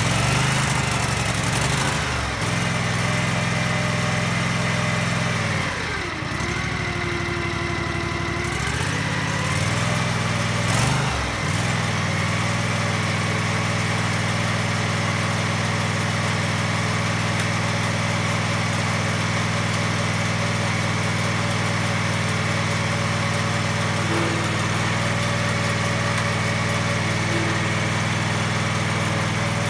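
Briggs & Stratton V-twin engine of a Viking GT16H lawn tractor running on choke just after starting. Its speed sags and picks up again a couple of times in the first dozen seconds, then it settles into a steady, even run.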